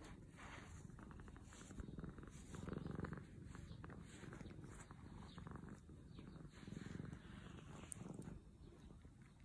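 Domestic cat purring close up: a low rumble that swells and eases with each breath, about once a second.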